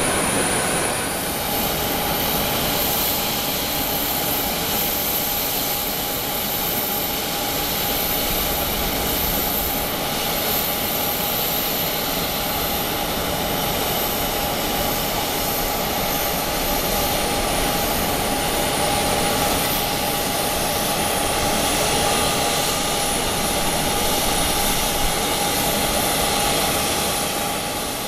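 Steady jet aircraft noise on an airport apron: a continuous rumble and hiss with a steady whine, fading out near the end.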